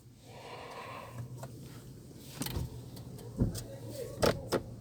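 Buttons clicking on a car's climate control panel as it is tested, over a steady low hum. A brief whir sounds in the first two seconds, and a few sharp clicks follow, the loudest about three and a half and four and a half seconds in.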